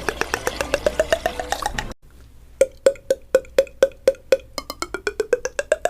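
A rapid train of short, hollow, pitched pops, like water drops, at about seven a second and rising in pitch. About two seconds in it cuts off abruptly. The pops return at a steady pitch, about five a second, then speed up and rise in pitch again near the end. It is a cartoon-style popping sound effect, either the anime original or a beatboxed mouth imitation of it.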